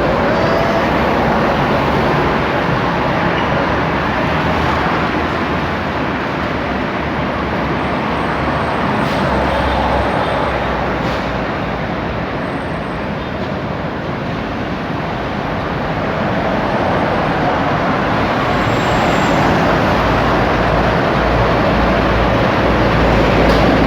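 Steady road traffic noise, a continuous rush with a low rumble that dips in the middle and swells again near the end.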